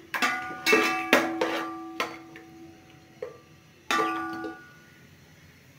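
A metal slotted spoon clanking against the side of an aluminium cooking pot while onions are stirred, each knock leaving the pot ringing briefly. About seven knocks, the loudest in the first second and a half, with one more ringing knock near four seconds.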